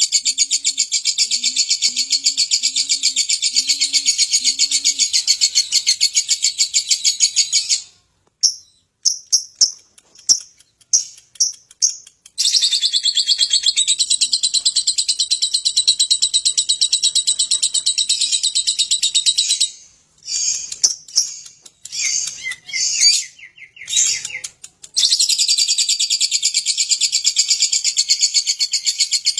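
Lovebird singing its long 'ngekek' song: a high-pitched, rapid chattering trill held without a break for several seconds at a time. It comes in three long runs, with short broken calls between them.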